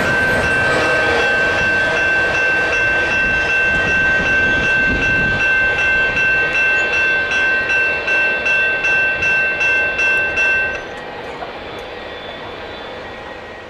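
Railroad crossing bell ringing in a steady pulse, about two to three strokes a second, over the rumble and wheel clatter of a CN double-stack intermodal train rolling away. The bell cuts off suddenly about eleven seconds in as the crossing clears, leaving a lower rumble that fades.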